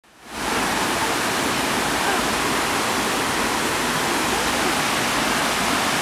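Creek water rushing over a wide rock ledge and down small cascades: a steady, even rush of falling water that fades in over the first half second.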